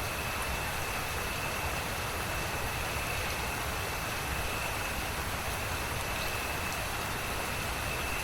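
Steady rain, an even hiss with a low rumble beneath it and a thin, steady high tone above.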